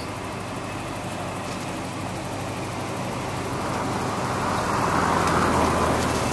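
A car engine running with a steady low hum, swelling louder about five seconds in and easing again.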